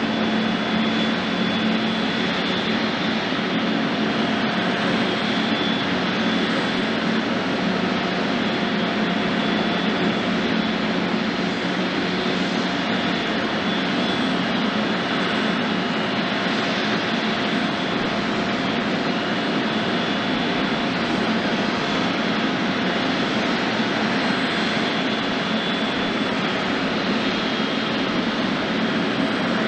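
Jet airliner engines running steadily, an even hiss with a faint whine in it: an Airbus A350-900 with Rolls-Royce Trent XWB engines.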